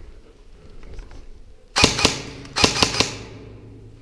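Airsoft gun firing: a few quick shots about two seconds in, then a second short burst of three or four shots just under a second later.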